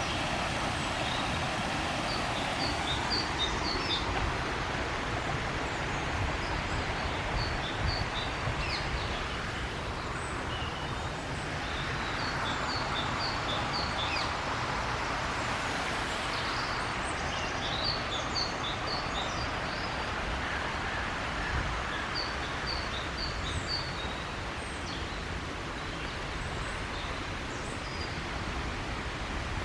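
A songbird singing a short phrase of rapid high notes, repeated about every five seconds, over a steady background rumble.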